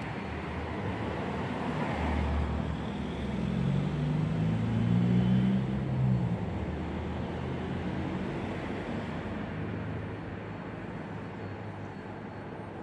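A motor vehicle passing on a road: a steady traffic rumble that swells with a low engine hum to a peak about halfway through, then fades away.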